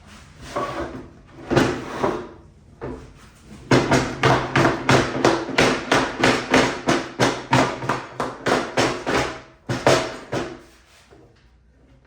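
Hammer blows knocking glued wooden drawer parts together: a few spaced strikes, then a steady run of about three knocks a second for some six seconds, and two more near the end.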